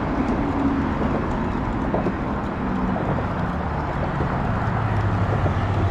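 Road traffic: a vehicle's engine passing, its pitch falling slowly, over a steady low rumble.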